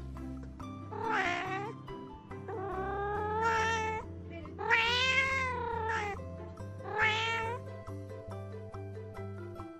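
Cat meowing four times in long, drawn-out calls that rise and fall in pitch, over background music.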